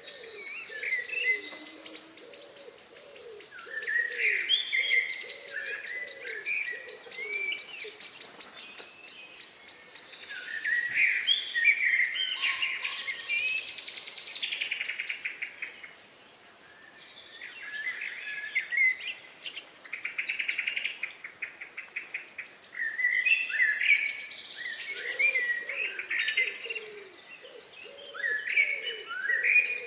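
Dusk chorus of several songbirds singing overlapping short whistled and twittering phrases, with a loud rapid trill about 13 seconds in. A low note is repeated in quick series at the start and again near the end.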